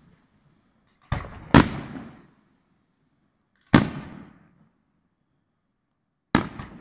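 Aerial firework shells bursting: four sharp bangs, two close together about a second in, one near the middle and one near the end, each trailing off in a short rumbling echo.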